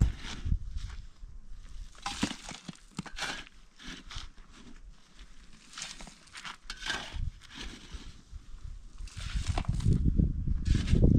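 A long-handled shovel scraping into dry, stony soil and throwing it into a metal wheelbarrow, in irregular strokes with a crunch and rattle each time. A low rumble builds from about nine seconds in.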